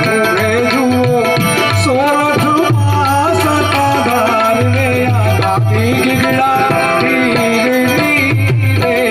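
Live Gujarati bhajan music: an electronic keyboard plays a melody with pitch bends over tabla accompaniment.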